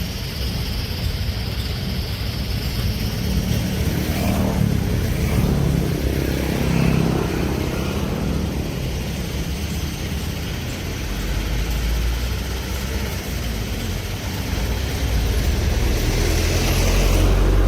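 Large excavator's diesel engine running under load, a steady low rumble that shifts in the middle and grows louder near the end.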